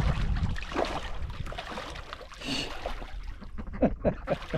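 Water splashing and sloshing in a small pool as ducks bathe in it.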